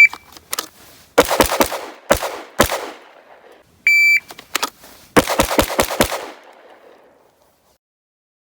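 Pistol shooting in two five-shot strings, each started by a short electronic beep. The first five shots come over about a second and a half. The second beep sounds about four seconds in, and the next five shots follow faster, in under a second.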